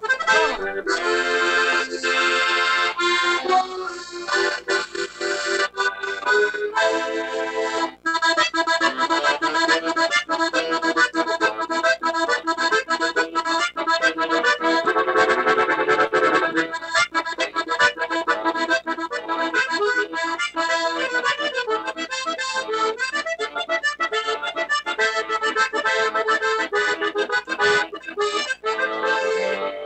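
Accordion playing a medley of tunes, with a brief break about eight seconds in before the next tune carries on.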